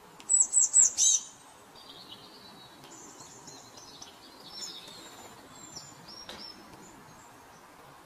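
Small songbirds calling: a quick run of four or five loud, high chirps about a second in, followed by quieter high twittering song.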